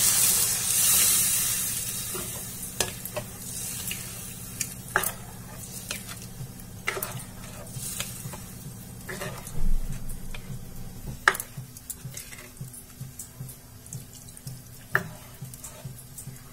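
Water poured from a steel tumbler into a hot kadai of fried potato masala, sizzling loudly at first and dying away over about two seconds. Then a spatula stirs the thin curry, with scattered clicks and knocks against the pan over a steady low hum.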